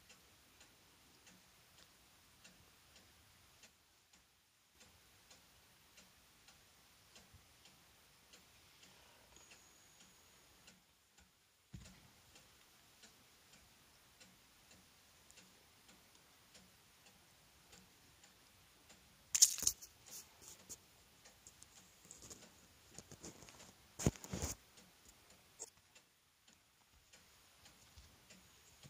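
Faint, regular ticking, with a few loud rustles and bumps right at the microphone about two-thirds of the way in as kittens paw at and brush against the camera.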